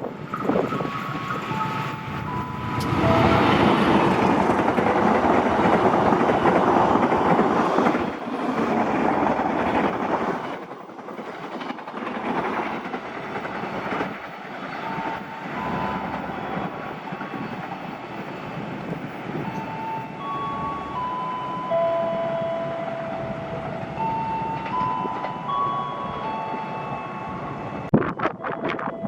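Diesel-hauled passenger train passing at speed through a station without stopping, its wheels and carriages running loudest from about three to eight seconds in, then the sound eases to a lower, steady rumble as the rest of the train goes by. A run of steady electronic tones stepping between a few pitches plays over it in the second half.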